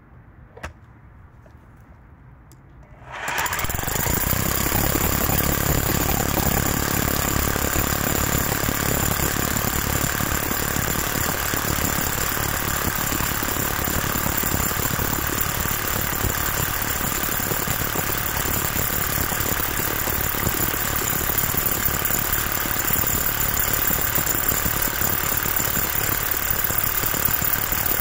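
Parkside Performance PPBH 1600 A1 25-joule SDS-Max corded hammer drill starting about three seconds in, then hammer drilling steadily into granite with a 25 mm Makita masonry bit. There is a steady motor tone over the fast hammering. Before it starts there is one short click.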